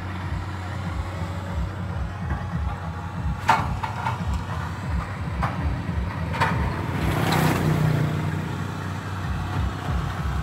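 Diesel dump truck engine idling close by, a steady low rumble, with a few sharp knocks in the middle and a brief swell in level a little later.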